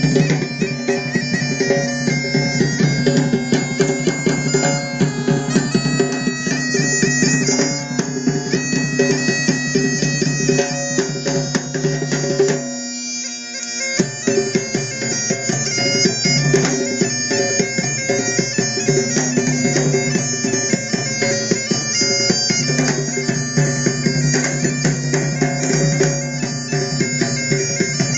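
Scottish bagpipes playing a tune over their steady drones, with a hand drum beating along. About halfway through, the drones drop out for about a second, then the pipes carry on.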